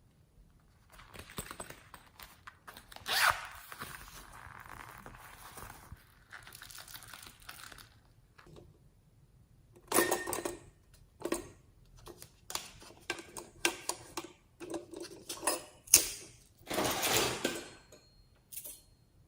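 Slime being worked by hand: irregular bursts of crackling, squishing noise with sharp clicks, coming in a string of separate presses and stretches.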